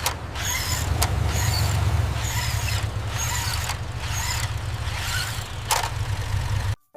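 Car engine running with a steady low rumble and a high squeak that repeats about every two-thirds of a second; it cuts off suddenly near the end.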